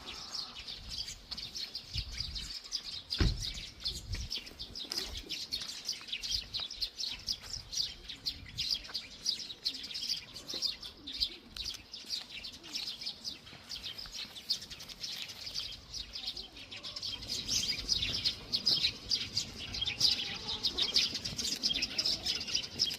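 Many small birds chirping and twittering in a dense, unbroken chorus of quick high calls, growing louder about two-thirds of the way through.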